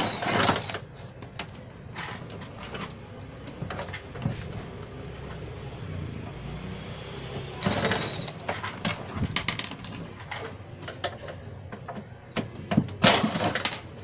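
Makita cordless driver spinning in three short bursts, near the start, about eight seconds in and near the end, backing out the screws of a CRT TV's rear cover, with clicks and handling noise between.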